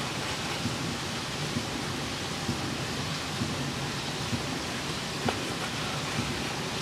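Serbian chef's knife slicing through raw buffalo meat on a cutting board, with a soft stroke about once a second. Under it runs a steady hiss with the crackle of a campfire.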